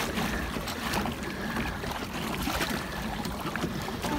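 Steady wash of water around a pedal kayak under way on a lake.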